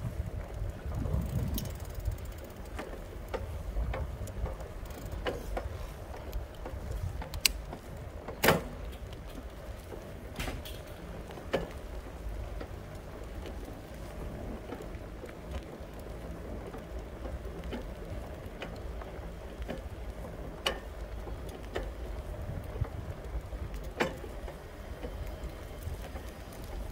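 Low rumble of wind on the microphone and tyres rolling over cracked asphalt during a slow ride, with scattered sharp clicks and knocks from the ride, the loudest about eight and a half seconds in.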